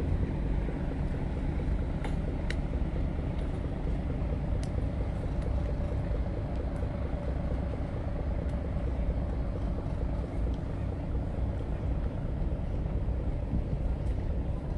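Steady low rumble of a boat engine running, with a few faint clicks about two seconds in.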